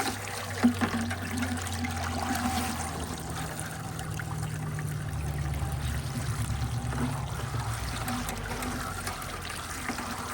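Water trickling in a bucket as fishing line is wound off a spool soaking in it onto a reel, with a sharp knock under a second in.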